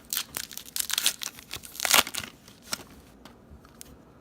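Crinkling and tearing of a baseball card pack's wrapper being handled and ripped open, a quick run of crackles with the loudest rip about two seconds in, dying away after about three seconds.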